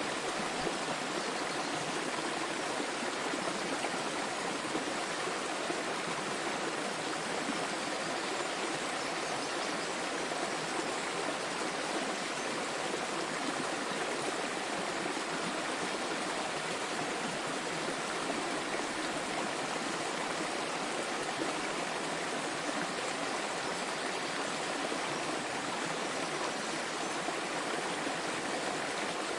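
Small waterfall with water splashing and flowing in a steady, unbroken rush.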